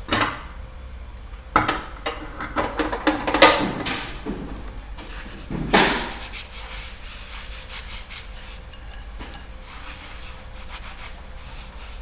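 Hard objects being handled: several knocks and short scraping sounds, the loudest about three and a half and six seconds in, then quieter over a steady low hum.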